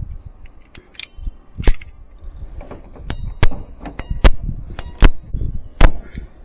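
Hand work with tools on metal: a string of irregular sharp knocks and clinks, a few of them ringing briefly, the loudest coming in the second half.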